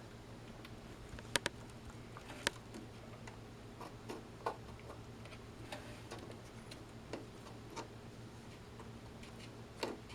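Scattered small clicks and taps as RAM sticks are handled and fitted at a desktop PC motherboard's memory slots. The two sharpest clicks come a second or two in, over a faint low hum.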